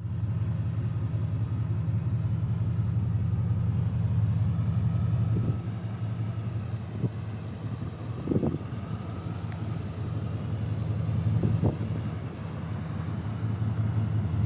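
Classic Pontiac Firebird's engine and exhaust running steadily under way, a deep low rumble. It eases off about five seconds in, then slowly builds again, with a couple of brief knocks in between.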